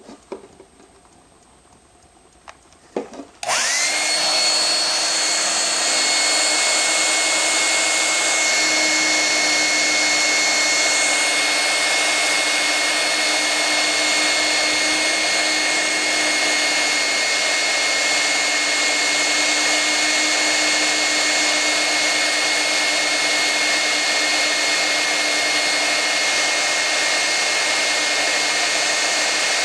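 A couple of clicks, then about three and a half seconds in a handheld hair dryer on its hot setting switches on and runs steadily. It gives a loud rush of air with a steady high whine from its motor.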